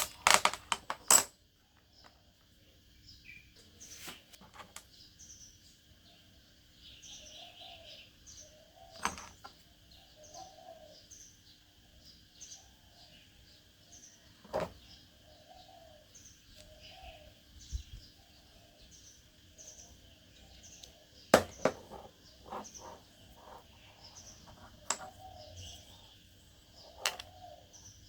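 A bird chirping over and over in short calls, with sharp clicks and knocks now and then, the loudest in the first second and about 21 seconds in. A faint steady hum lies underneath.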